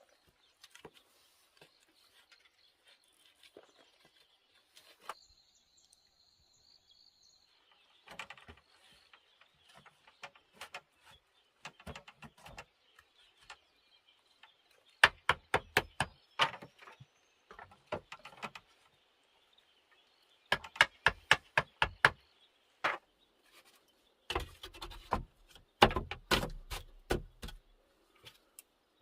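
Runs of sharp clicks and knocks in quick clusters, loudest and densest in the second half, over a faint steady high chirring.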